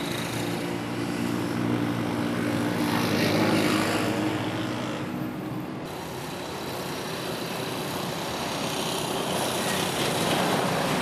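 An engine running steadily close by: a low droning hum with several steady tones for about the first five seconds, giving way to a broader rushing noise.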